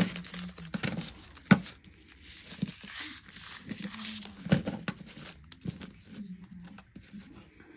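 Packets of nail polish strips being handled: crinkling packaging with scattered sharp taps and clicks, the sharpest about a second and a half in.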